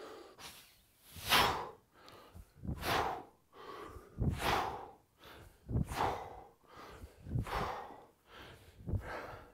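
A man breathing out hard in time with kettlebell swings: six short, forceful exhales, one about every second and a half.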